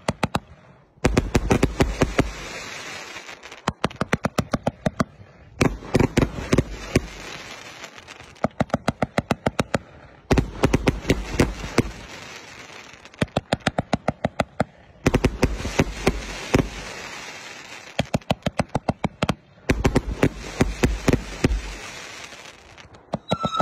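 A 520-shot fireworks cake firing in volleys: each is a rapid string of sharp shots with deep thuds, followed by a fading crackling hiss from the bursting stars, and the volleys repeat every two to three seconds.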